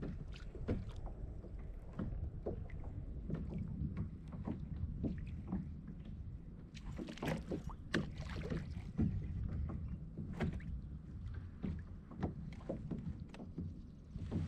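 Small waves lapping and slapping irregularly against a plastic kayak hull, over a low rumble of wind on the microphone.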